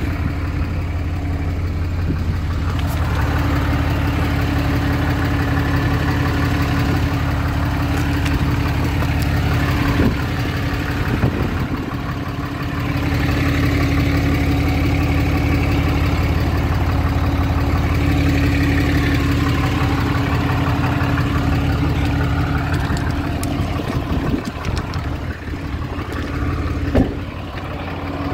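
Dodge 5500 service truck's engine idling steadily, with a constant low hum and a held tone above it. A few brief knocks break in about ten seconds in and again near the end.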